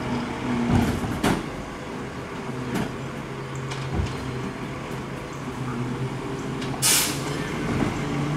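Diesel engine of a Labrie Expert Helping Hand side-loader garbage truck on a Freightliner chassis running steadily at low speed, with several clanks and a short, loud hiss of air about seven seconds in.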